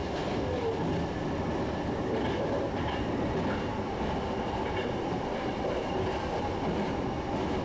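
Electric train of the Sanyo Electric Railway running at speed, heard from inside its front cab: a steady low rumble of wheels on rail and running gear.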